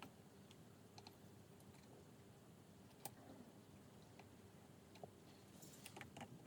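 Near silence broken by a few faint, sharp clicks and taps from small tools and parts being handled while soldering a circuit board, with a short cluster of them near the end.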